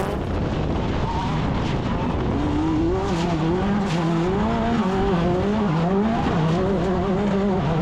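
Class 10 off-road race car's engine running hard, its pitch rising and falling repeatedly as the throttle changes, over a steady hiss.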